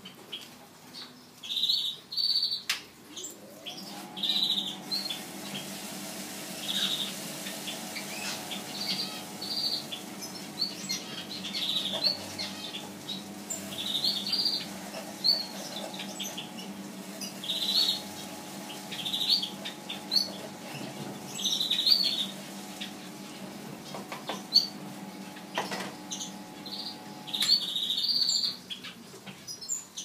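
Motor of a bird seed and husk separator humming steadily. It starts about three seconds in, rising quickly to a steady pitch, and stops near the end. Small birds chirp in short, repeated calls throughout.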